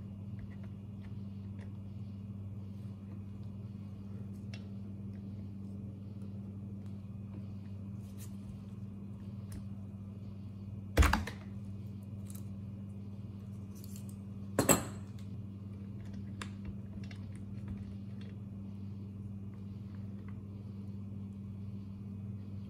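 Small plastic and metal parts of a Craftsman chainsaw being handled as the choke linkage and kill wire are unhooked from its carburetor: faint clicks and rattles, with two sharper knocks about eleven and fifteen seconds in, over a steady low hum.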